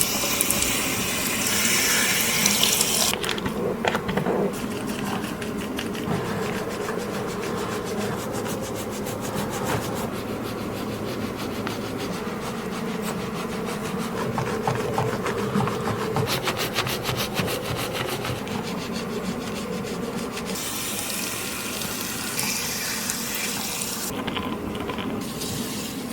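Hair being washed: running water rinses the hair for the first few seconds, then fingers rub and scrub the wet, lathered scalp in quick scratchy strokes, and the water runs again near the end.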